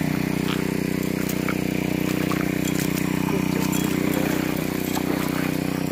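Small gasoline engine of a 2-inch suction gold dredge running steadily at a constant speed, with a few faint clicks over it.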